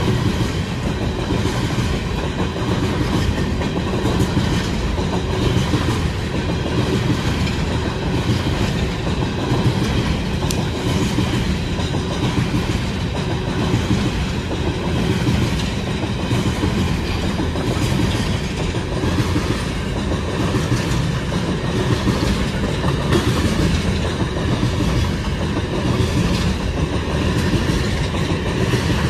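Freight train cars rolling past, their wheels making a steady clickety-clack on the rails.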